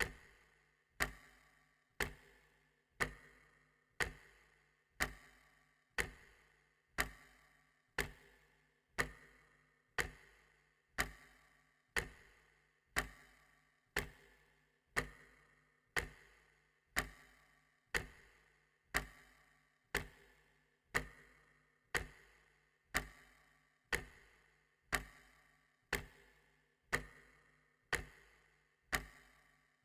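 Clock ticking steadily, one tick a second, each tick a click that fades away quickly.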